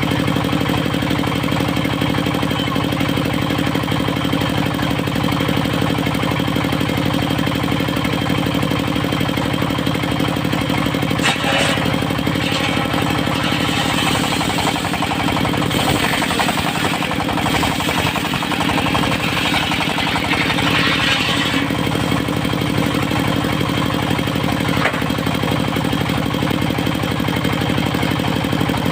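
Diesel engine driving a circular sawmill, running steadily under load. For about ten seconds in the middle, a hissing rasp of the saw blade cutting through teak rises over it, starting with a sharp knock.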